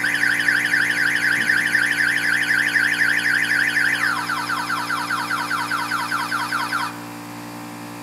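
Boat security alarm siren sounding after being set off: a fast rising-and-falling electronic warble that changes to a quicker, lower warble about four seconds in, then cuts off suddenly about seven seconds in. A shop air compressor hums steadily underneath.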